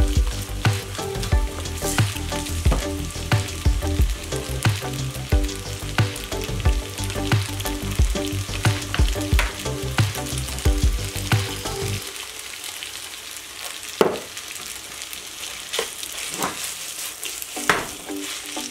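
Spaghetti, bacon and canola flower being tossed in a hot nonstick frying pan with metal tongs: a light sizzle under frequent sharp clicks and clacks of the tongs against the pan.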